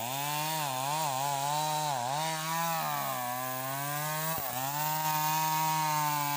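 Stihl chainsaw cutting teak, its engine running at high revs and dipping and recovering about once a second as the bar takes the load. A short knock comes about four seconds in.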